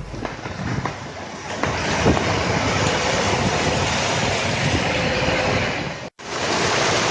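Steady rush of floodwater on a waterlogged street, with a vehicle pushing through the water. The sound cuts out for an instant about six seconds in, then resumes.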